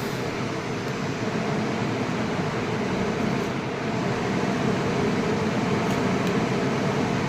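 Kitchen chimney (range hood) blower fan running steadily: an even rush of air with a low hum under it, growing slightly louder about four seconds in.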